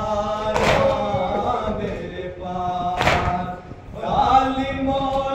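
Group of men chanting a Shia lament (noha) together on long held notes. They strike their chests in unison (matam) twice, about two and a half seconds apart.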